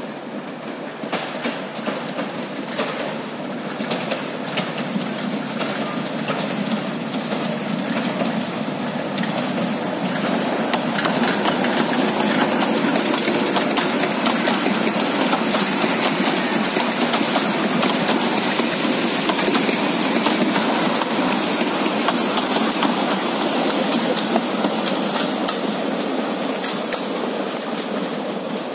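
Narrow-gauge forest railway passenger train passing close by, its wheels clicking over the rail joints. The sound builds as the train draws near, stays loud through the middle as the carriages go past, and eases off as the last carriages move away.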